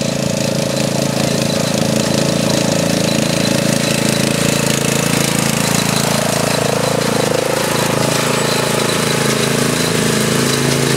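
Ride-on lawn mower engine running hard as the mower climbs a grass slope and drives past, its pitch shifting about six or seven seconds in as it goes by closest, then carrying on as it pulls away uphill.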